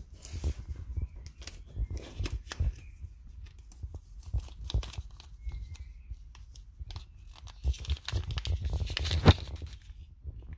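Small clear plastic parts bag crinkling and rustling as it is handled, with scattered clicks and a louder stretch of crinkling near the end.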